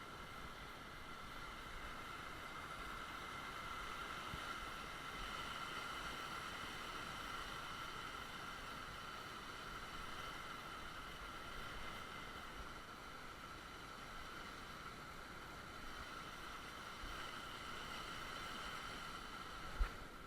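Small creek running, a steady, faint water babble, with a single soft knock near the end.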